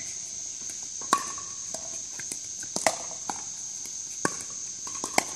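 Pickleball paddles striking a hard plastic ball: sharp pops at irregular intervals, the loudest about a second in and near three seconds in. A steady high-pitched whine runs underneath.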